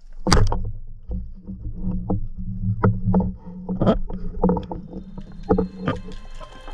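Underwater sound from a camera in its housing: a steady low water rumble with a string of sharp knocks and clicks as the diver moves along the reef, the loudest about a third of a second in.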